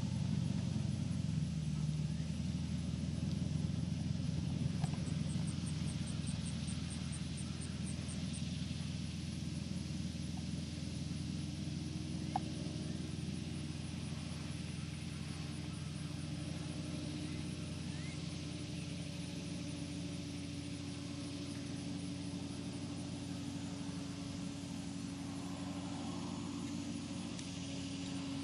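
Four-wheel-drive farm tractor's engine running steadily under load, growing gradually fainter as it drives away.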